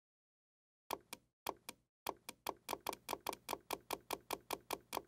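Edited-in sound effect of sharp, clean knocks: a few spaced ones about a second in, then a steady run of about five a second, like a ticking build-up.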